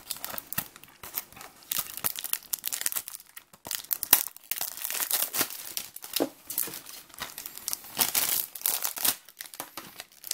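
Plastic shrink-wrap being torn and peeled off a Blu-ray case, crinkling and crackling irregularly, loudest about four and eight seconds in.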